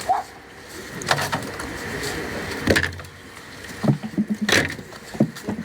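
Handling noise: several sharp knocks and rustles spread over a few seconds.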